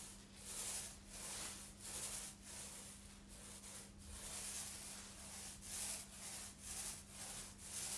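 A small foam paint roller loaded with water-based chalk paint rolling back and forth over a waxed, previously painted surface. Quick repeated strokes each give a soft swish, two to three a second.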